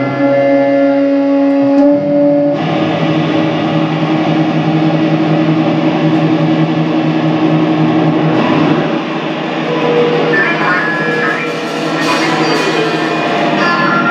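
Live rock band playing loud, with sustained electric guitar chords over a dense wash of sound. It fills out about two and a half seconds in and grows noisier and brighter from about eight seconds on.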